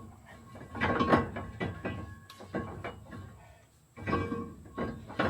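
Metal parts knocked and clanked during a truck brake job, each knock ringing briefly at the same metallic pitches; there are about half a dozen irregular strikes.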